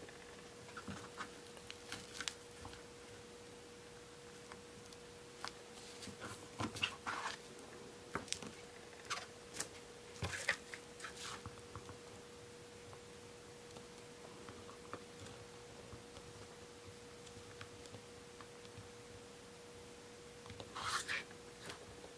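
Faint scattered clicks and light taps of a jointed Ever After High fashion doll being handled as its arms are posed on its stand. The clicks are busiest in the middle and again near the end, over a faint steady hum.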